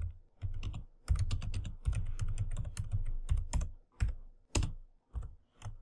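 Typing on a computer keyboard: a quick run of keystrokes with short pauses, busiest in the middle.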